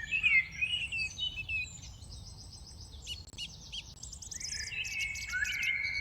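Several small birds chirping and calling together, short overlapping chirps and whistles. They are busiest in the first second and again over the last second and a half, sparser and higher-pitched in between.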